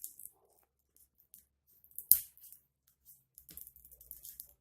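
Packaging being handled while earphones are unpacked: one sharp click about two seconds in, then faint rustling and small ticks.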